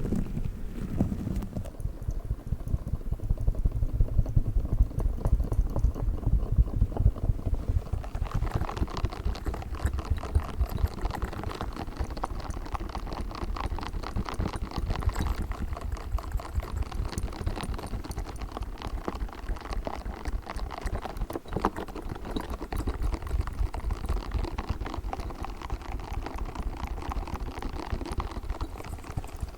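A pink spiky squishy ball being handled for ASMR: fast, dense crackling taps and squishes that run on without a break.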